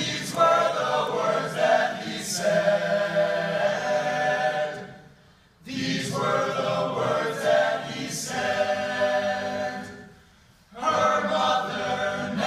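A men's a cappella group singing held chords in three long phrases, each broken off by a short pause about five and ten seconds in.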